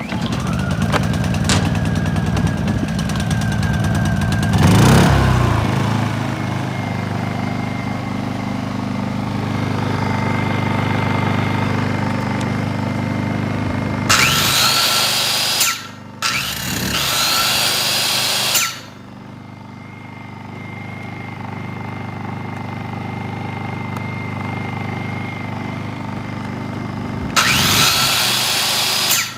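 Honda EU16i inverter generator's small four-stroke engine starting, surging about five seconds in, then running steadily. Three times an electric power tool run from it spins up with a rising whine.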